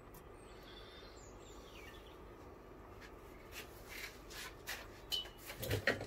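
Faint room hiss, then from about halfway a handful of light knocks and clinks as the cylinder head and its valve parts are handled and turned over on the rubber-matted bench.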